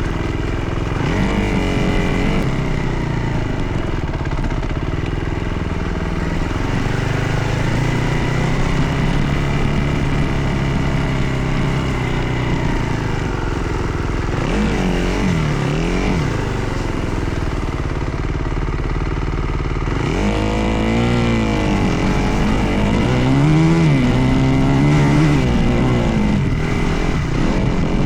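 Dirt bike engine running under way, holding steady for stretches and revving up and down with the throttle several times, most in the second half.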